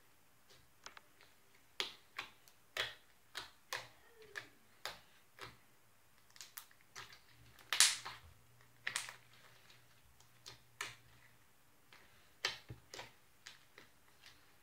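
Light-blue slime being pressed and kneaded by hand, giving irregular sticky clicks and small pops, about one or two a second, the loudest about eight seconds in.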